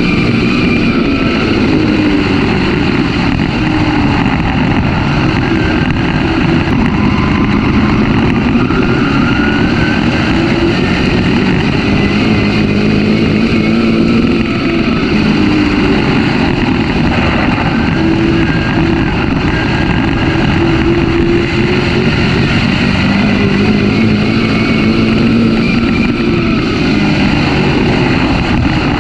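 Oval-track race car engine heard from the car's onboard camera, running hard at full race pace. Its pitch climbs and drops in a repeating cycle every several seconds as the car accelerates down the straights and lifts into the turns.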